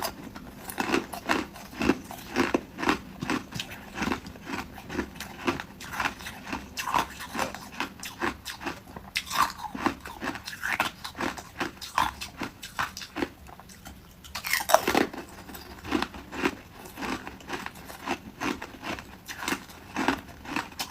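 Ice cubes being bitten and chewed up close: a steady run of crunches, two or three a second, with a louder bite about fifteen seconds in.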